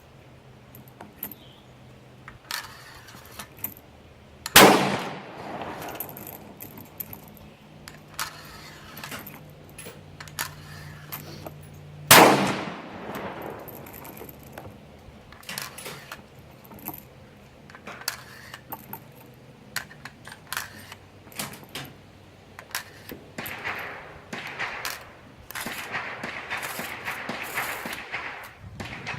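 Two rifle shots about seven and a half seconds apart, each with a ringing tail, among smaller clicks and knocks.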